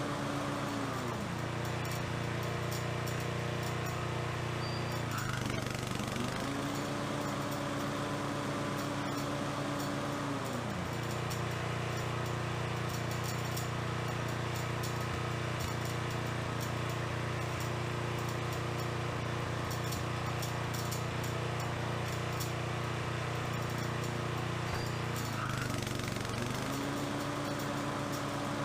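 Toro Timemaster 30 mower engine running steadily. Its pitch drops about a second in, rises again around six seconds, drops around ten seconds, and rises once more near the end.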